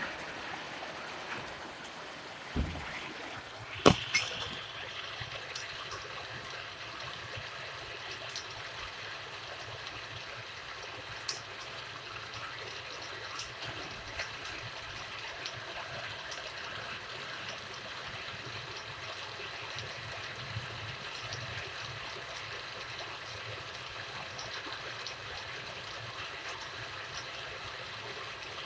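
Steady rain falling, an even hiss with scattered sharp ticks of drops. A low thump about two and a half seconds in and a sharp knock just before four seconds are the loudest sounds.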